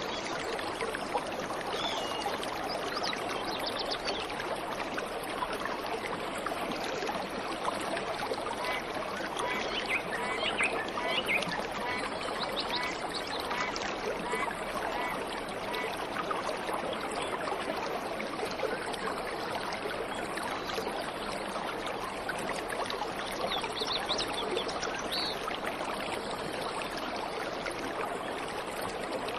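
Waterfall water rushing and splashing in a steady even wash. A few birds chirp briefly about ten seconds in and again later.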